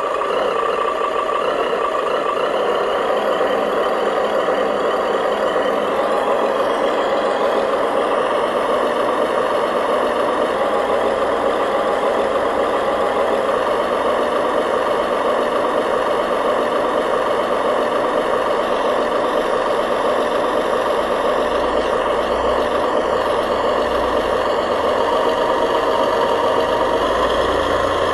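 Radio-controlled model construction truck running steadily, its motor and gearbox giving a continuous mechanical whir.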